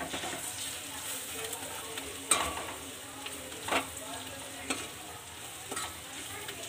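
Onion, green chilli, ginger-garlic paste and ground spices frying in oil in a stainless steel kadhai with a steady sizzle, while a steel spoon stirs them, scraping and knocking against the pan. A few strokes stand out, the loudest a little over two seconds in.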